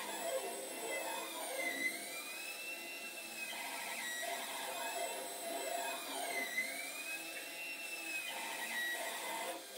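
Monoprice Maker Select Mini 3D printer's stepper motors whining in repeated smooth glides up and down in pitch as the print head traces the coaster's circular rim. The level dips briefly near the end.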